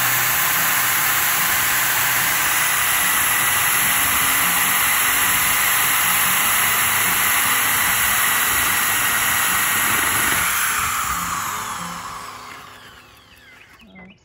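Corded electric drill running steadily at high speed, boring into a wooden board with a 1-inch hole saw. Near the end it winds down over a couple of seconds as the trigger is let go.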